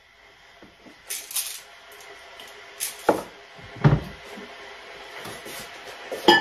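Kitchen cupboard doors opening and closing, with several knocks and clatters. The loudest is a dull thump about four seconds in.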